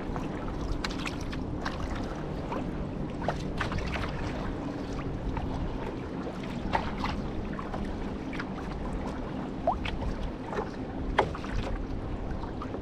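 Canoe paddling: paddles dipping and dripping, with many small splashes and droplet sounds scattered irregularly, over a steady rumble of wind on the microphone.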